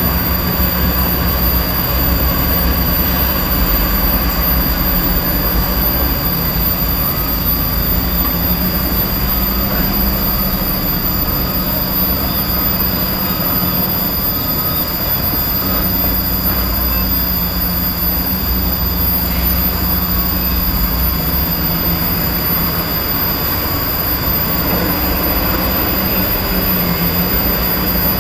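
Steady drone of heavy diesel machinery, dump trucks and a crawler bulldozer working, with a low hum and a constant high whine over it.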